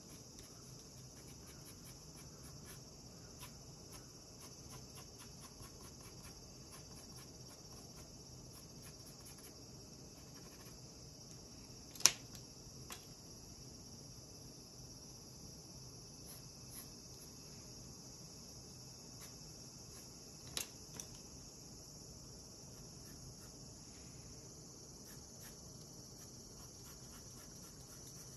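Colored pencil strokes scratching faintly on paper, broken by two sharp clicks of a pencil being put down on the desk as pencils are swapped, the first, loudest, about halfway through and the second about two-thirds through. A steady high-pitched hiss runs underneath.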